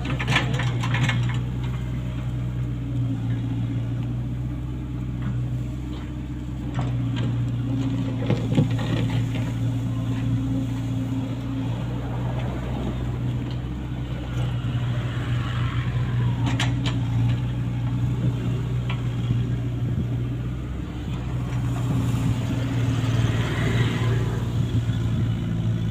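Komatsu PC75US-3 excavator's diesel engine running steadily, with a few sharp knocks along the way.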